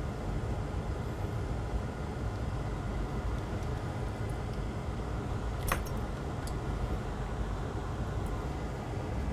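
Steady low rumbling background noise, with one sharp click a little before six seconds in and a few faint ticks.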